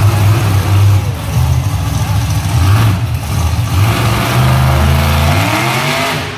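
Monster truck engine revving hard, surging and easing with the throttle as the truck climbs onto a crushed car, then dropping off about five seconds in. Arena crowd noise sits underneath.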